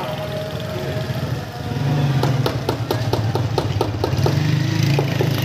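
Hammer tapping quickly on a stone wall tile to bed it into its mortar, about four taps a second starting about two seconds in. A steady low engine-like hum runs underneath.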